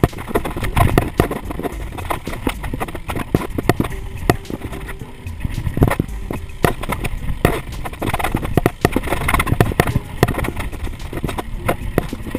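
Mountain bike rattling and clattering as it rolls down a bare granite rock slab, with many irregular sharp knocks over a steady low rumble.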